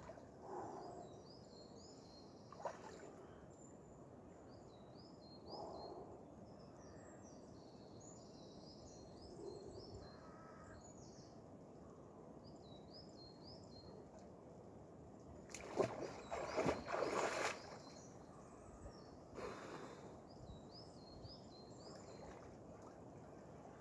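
Lake water splashing around a swimmer, with a louder, choppier stretch of splashing about two-thirds of the way through as he moves back into deeper water and swims off. A small songbird sings short high phrases over and over throughout.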